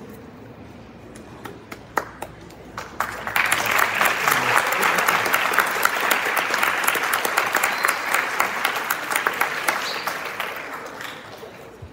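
Audience applauding: a few scattered claps at first, then full applause starting about three seconds in and dying away near the end.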